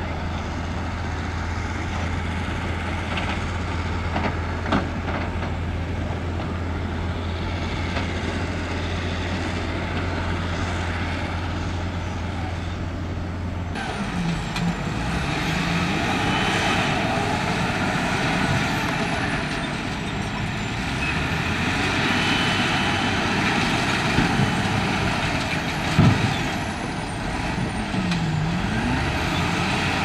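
Heavy diesel construction machinery running: a steady low engine hum, then about halfway through a louder stretch of machine noise with the engine pitch rising and falling, and a few sharp knocks near the end.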